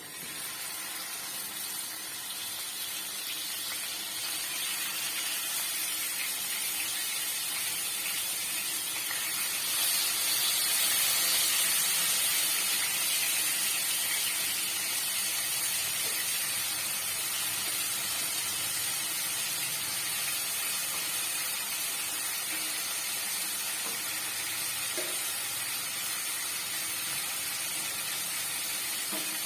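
Marinated chicken tikka pieces sizzling in hot oil in a pan on high flame, a steady frying hiss that grows louder for a few seconds around ten seconds in.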